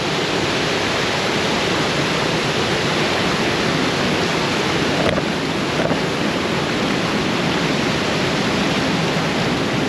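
Steady rushing of flowing river water, an even noise that holds at one level.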